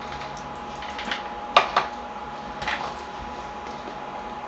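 A small cardboard processor retail box handled and opened by hand: a few sharp cardboard taps and scrapes, the loudest about one and a half seconds in, over a steady faint hum.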